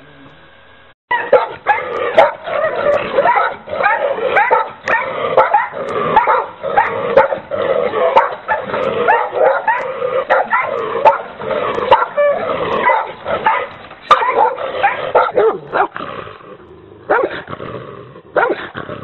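Large shepherd-type dogs barking rapidly and continuously, several barks a second, starting about a second in, with a short lull near the end.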